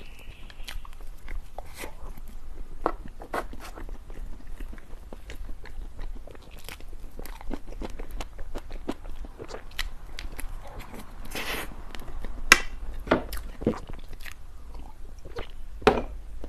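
Close-miked eating sounds: a person biting and chewing dessert, with many scattered sharp clicks and mouth smacks. There is a longer crunchy burst a little past the middle.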